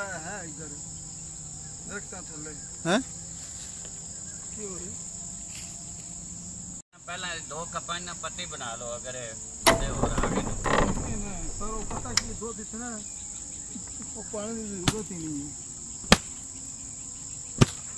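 Steady, high-pitched chorus of insects from the surrounding woods, with a few sharp knocks and a burst of handling noise as things are set down and moved about.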